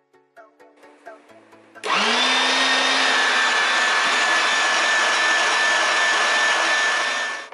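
Electric meat grinder switched on about two seconds in: its motor spins up with a brief rising hum, then runs at a steady pitch with a high whine until it cuts off near the end.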